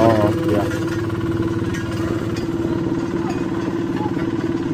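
Walk-behind double-drum asphalt roller's small engine running steadily while it compacts fresh hotmix asphalt.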